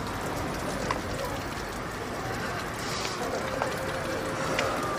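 Outdoor street ambience, a steady hiss with a few faint clicks. Near the end, a distant emergency-vehicle siren begins, its pitch sliding slowly down.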